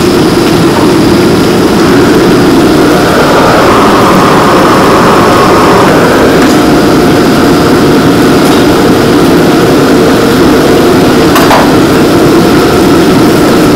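A restaurant gas wok burner at full flame gives a loud, steady rush, and battered pieces sizzle as they deep-fry in oil in the wok. A single knock comes about eleven seconds in.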